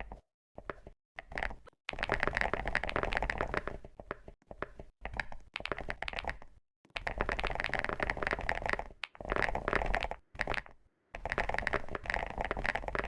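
Fast typing on a keyboard: dense runs of key clicks lasting one to three seconds, broken by short pauses.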